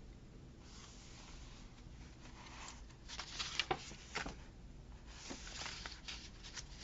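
Paper and sticker sheets being handled, rustling with a few light crinkles and taps, in several short spells.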